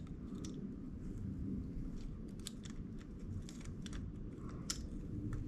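Faint, scattered clicks and light scrapes of a bash guard mount and its parts being worked into place behind a mountain bike's chainring, by hand.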